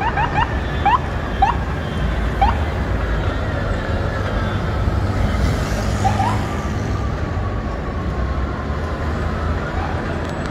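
City traffic rumbling, with an emergency vehicle's siren slowly falling in pitch and starting to rise again near the end. Short rising chirps come in the first couple of seconds and once more around six seconds in.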